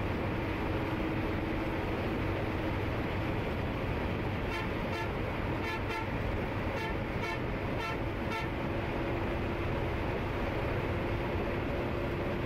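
Steady engine and road noise inside an Eicher 20.15 bus at highway speed, with a horn tooting in a string of about eight short beeps over some four seconds in the middle while the bus overtakes another bus.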